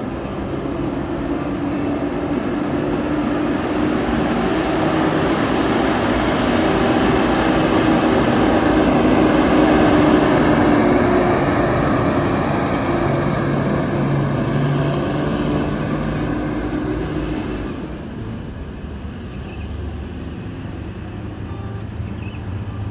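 A bus driving past: the engine and road noise grow louder to a peak about ten seconds in, then fade from about seventeen seconds.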